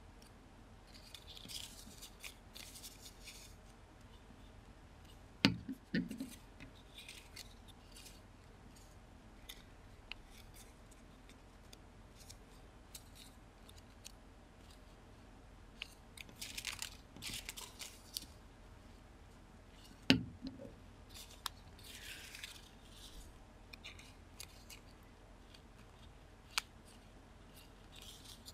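Folded origami paper rustling and crinkling in short spells as joint pieces are slid and tucked into the pockets of the motif units, with a few sharp knocks, the loudest about five seconds in and again about twenty seconds in.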